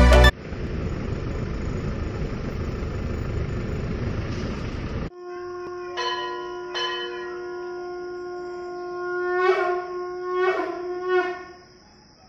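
An even rushing noise stops suddenly about five seconds in. The Darjeeling toy train's whistle then sounds one long steady note that wavers briefly near the end.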